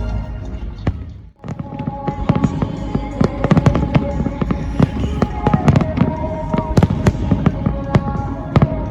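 Fireworks bursting and crackling in quick succession over music. The sound drops out abruptly about a second in, then the bangs come thick and fast.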